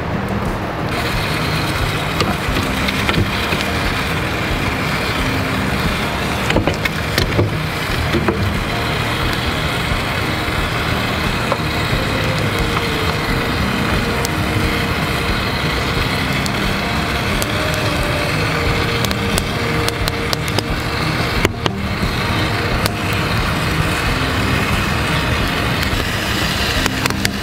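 Wood fire burning in a pizza oven: a steady rushing roar with occasional sharp crackles and pops.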